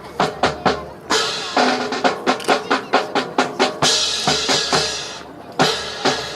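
Drum cadence with rapid snare and bass drum strikes and two longer cymbal-like crashes, about one and four seconds in.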